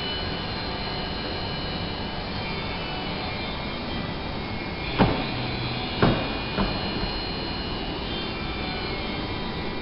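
A steady rushing hiss with three short knocks about halfway through.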